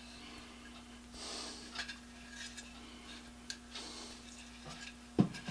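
Quiet hand work at a workbench: soft hissing strokes about every two and a half seconds, then one sharp knock about five seconds in, over a steady low hum.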